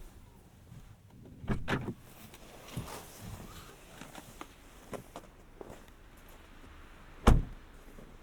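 Scattered clicks and knocks of handling inside a parked car's cabin: a quick double knock about a second and a half in, a few light taps, and one loud sharp thump about seven seconds in.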